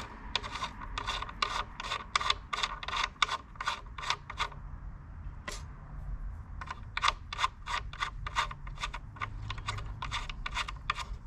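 Threaded metal bridge posts being screwed by hand into the metal inserts in a guitar top: a run of short scraping rasps, a few a second, with a brief pause in the middle.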